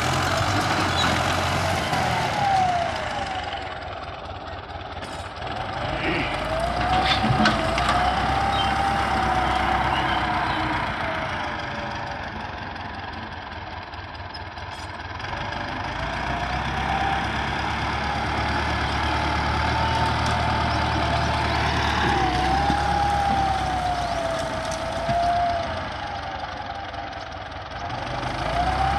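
Russian-built tractor's diesel engine running under changing load as its front blade pushes through brush. The engine note swells and eases, with a whining tone that rises and falls several times.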